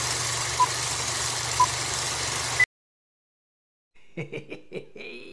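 Old film-projector countdown sound effect: a steady whir and crackle with a low hum and a short beep each second, ending on a higher-pitched beep and cutting off abruptly. After a second of silence a man laughs.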